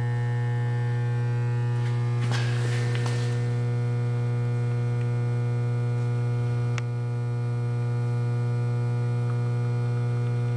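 Steady electrical mains hum at about 120 Hz with a ladder of overtones. A brief hissy rustle comes about two seconds in and a single sharp click near seven seconds.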